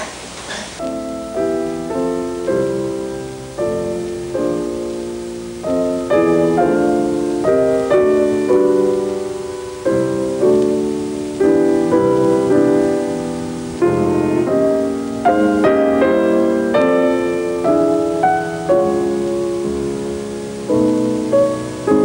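Piano music: single notes and chords struck one after another, each fading away after it is struck.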